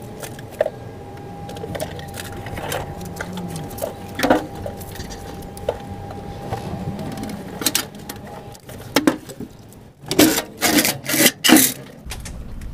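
Hydraulic floor jack being let down with a Proton Wira's fuel tank on its saddle: a thin steady whine with scattered knocks, which stops about eight and a half seconds in. Near the end comes a run of loud knocks and scrapes as the tank is lowered onto the ground.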